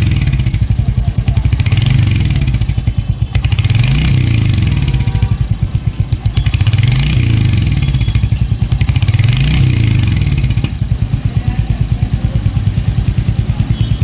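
Royal Enfield Hunter 350's single-cylinder engine, heard close at the exhaust, revved in several throttle blips that rise and fall. About three-quarters of the way through, it settles back to a steady idle.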